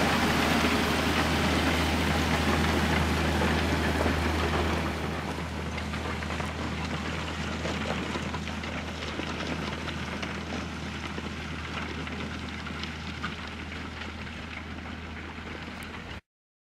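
A vehicle engine droning steadily under a noisy rush, dropping about five seconds in and fading slowly as it moves off, then cutting off suddenly near the end.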